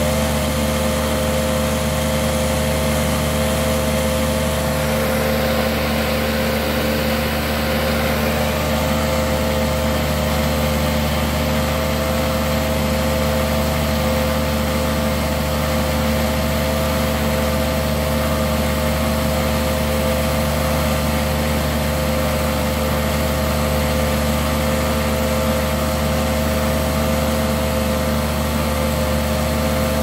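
Hoover Decade 80 upright vacuum cleaner running steadily at normal speed: a steady motor-and-fan whine that wavers slightly in pitch over a low hum. It carries a vibration that the owner thinks comes from brushroll bearings worn by carpet freshener powder.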